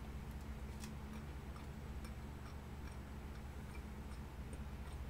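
Quiet steady low hum with a few faint, scattered clicks.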